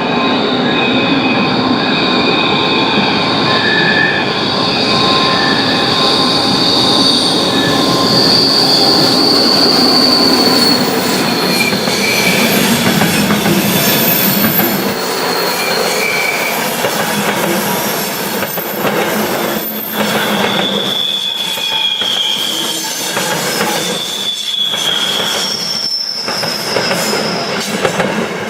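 A passenger train's wheels squealing high and piercing as their flanges grind against the rail in a tight curve, over the loud running of an ÖBB class 1144 electric locomotive. In the second half the passing carriages add a clickety-clack of wheel knocks and separate squeals.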